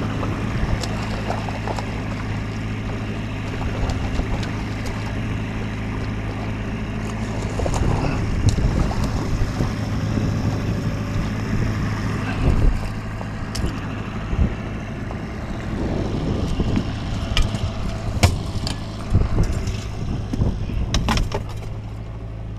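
Boat motor running steadily at trolling speed, a low even hum, with irregular knocks and rattles from about eight seconds in.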